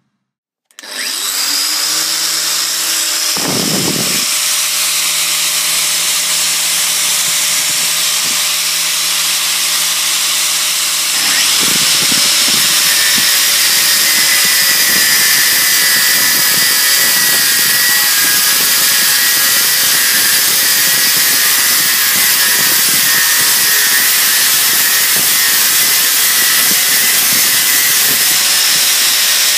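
DeWalt 125 mm 1500 W angle grinder with a 1 mm cut-off disc cutting through solid 18×18 mm V4A stainless steel bar, a steady grinding noise that starts about a second in. About eleven seconds in it grows louder and a high whine joins it.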